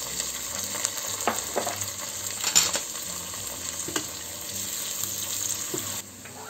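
Chopped green and red peppers sizzling in hot olive oil in a stainless pressure-cooker pot, stirred with a silicone spatula that gives a few light knocks against the pan. The sizzle quietens near the end.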